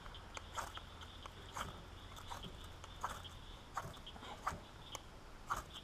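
Hands working a fire starter at crushed dried pond material used as tinder, making faint short scrapes and clicks roughly once a second while trying to get it to catch.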